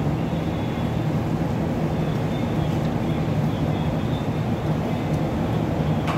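A steady low machine hum, even in level throughout, with no clear starts or stops.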